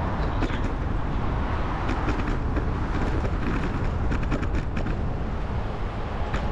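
Riding noise from a bicycle: a steady low wind rumble on the microphone, with scattered sharp rattling clicks from the bike.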